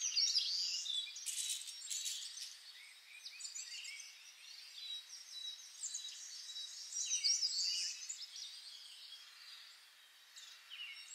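Birds chirping in many short, overlapping calls, with a thin steady high tone running through much of it. It is louder near the start and again about two-thirds of the way in.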